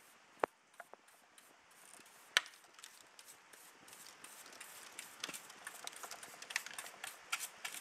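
A brush with 3D-printed 0.5 mm ABS plastic bristles sweeping across a bench top: a faint rubbing with two sharp taps, about half a second and two and a half seconds in, and many small ticks over the last few seconds.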